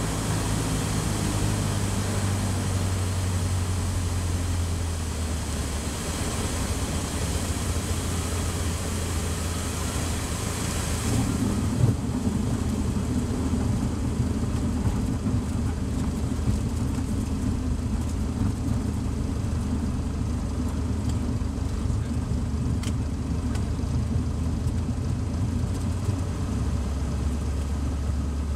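Cessna 152's four-cylinder Lycoming engine running at low power with a steady hiss of rushing air on final approach. About eleven seconds in the main wheels touch down with a light bump, the hiss drops away and a low rumble of tyres rolling on the runway joins the engine; near the end the engine note shifts lower.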